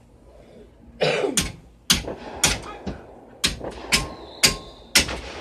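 Consumer firework going off: a string of about eight sharp bangs, roughly two a second, starting about a second in.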